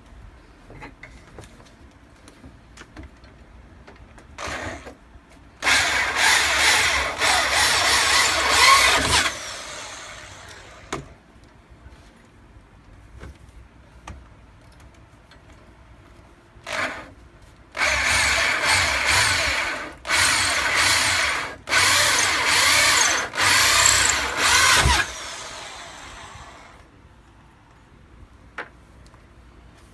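Power drill run in bursts while drilling: a brief blip, a run of about three and a half seconds that winds down, then after a pause another blip and four runs of one to two seconds in quick succession, the last winding down slowly.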